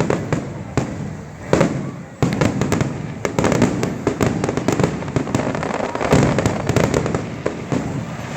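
Fireworks display: a dense, continuous barrage of bursts and crackles, with sharp, loud booms about one and a half and two seconds in.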